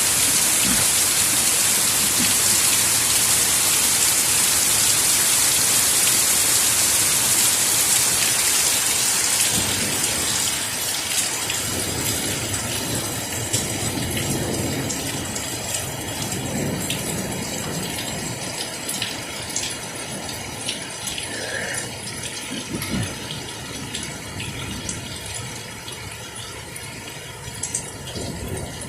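Heavy rain falling steadily, a dense hiss that thins after about nine seconds into lighter rain with separate drips.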